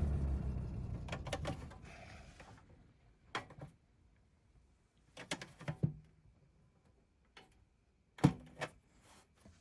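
A pair of Lasko-made 20-inch box fans coasting down after being switched off, their running sound fading away over about two and a half seconds. A few short clicks and knocks follow, the loudest about eight seconds in.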